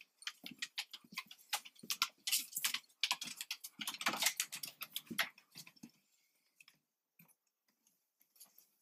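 Footsteps on a wooden deck and the handling of a cabin door: a run of soft, irregular knocks and clicks that stops about five and a half seconds in.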